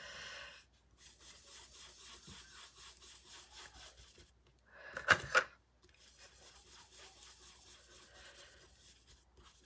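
Soft, repeated rubbing of a blending brush's bristles swirling dye ink onto die-cut cardstock, in stretches of a few seconds, with one brief louder brushing sound about five seconds in.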